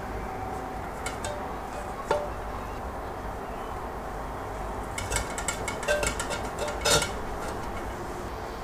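Seared lamb shanks set into an earthenware güveç pot: one knock about two seconds in, then a cluster of light clicks and clinks against the clay between about five and seven seconds, over a steady low hum.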